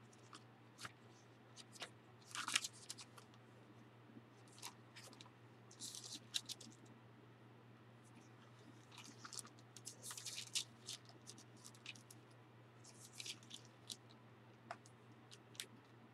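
Pages of an old Oxford Bible being handled and turned: about four short, crisp paper rustles with small clicks in between, faint overall.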